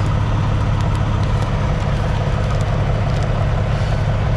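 An engine idling: a steady low drone that holds even throughout.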